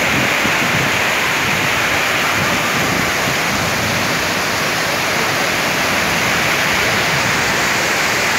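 Heavy monsoon rain pouring down onto a wet street, a steady, loud hiss of falling water with no let-up.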